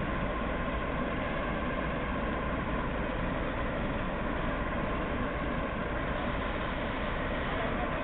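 Class 08 diesel shunter's English Electric six-cylinder engine idling steadily close by.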